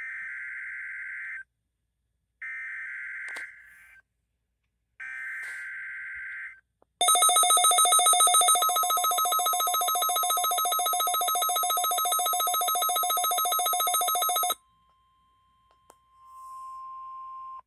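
NOAA Weather Radio Emergency Alert System (EAS) alert tones for a Required Weekly Test. First come three shrill data bursts, the SAME header, each about a second and a half long and about a second apart. Then a loud, buzzy, rapidly pulsing alert tone sounds for about seven seconds. After a short quiet gap, a quieter steady tone starts near the end.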